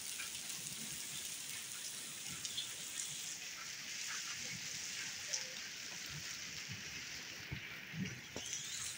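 Heavy rain mixed with hail falling on a paved courtyard and roofs: a steady hiss with scattered sharp taps of drops and hailstones.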